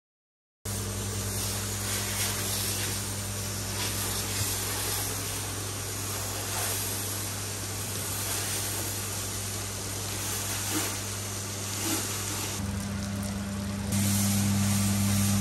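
Hand-held pressure washer spraying water onto a truck's cab and chassis: a steady hiss of spray over the even hum of the washer's pump. It cuts in about half a second in, and the hum grows louder near the end.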